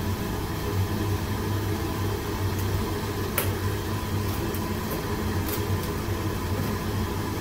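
Steady roar and low hum of commercial kitchen gas wok burners and the exhaust hood, with a single light click about three and a half seconds in.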